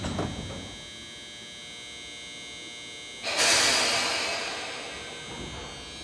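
Commuter train standing with its doors just closed: a thump at the start, then a steady electrical hum with high whining tones. About three seconds in comes a sudden loud hiss of released compressed air, fading away over about two seconds.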